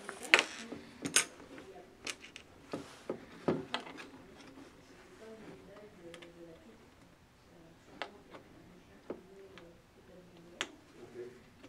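Scattered metal clicks and knocks as hands handle an LED street-light housing and a small hand tool on a tabletop, loudest and most frequent in the first four seconds.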